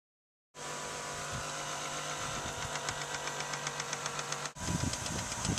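Tool running a bolt into a power seat rail: a steady mechanical whir with rapid, even clicking. The sound breaks off and resumes louder about four and a half seconds in.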